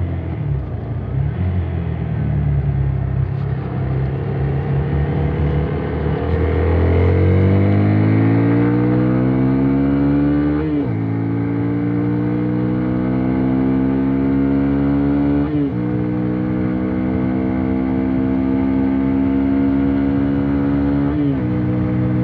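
Hero XPulse 200's single-cylinder engine through its stock exhaust, revving up and then shifting up three times. Each upshift is a sudden drop in pitch, about five seconds apart, with the engine pulling steadily between shifts.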